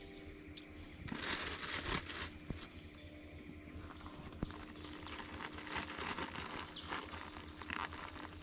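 Steady high-pitched chorus of insects, with scattered soft rustles and clicks and a louder rustle about a second in.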